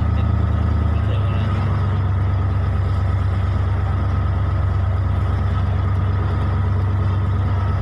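Engine of a wooden crossing boat running steadily with a loud low drone; its note changes slightly about a second in.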